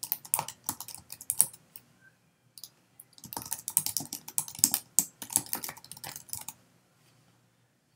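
Typing on a computer keyboard: quick runs of key clicks in two bursts with a pause of about a second and a half between them, stopping about two-thirds of the way through.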